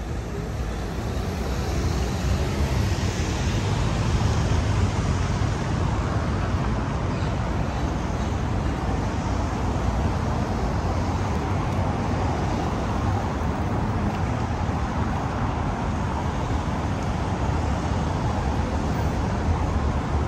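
Steady city road traffic: a continuous low rumble of passing cars and other vehicles, swelling over the first couple of seconds and then holding even.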